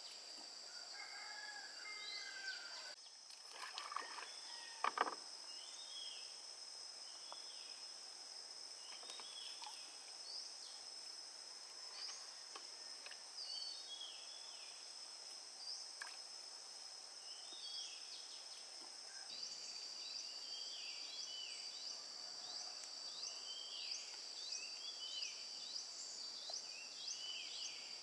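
Outdoor ambience: a steady high-pitched insect drone, with birds repeating a short chirp about once a second. A couple of brief knocks come about four to five seconds in.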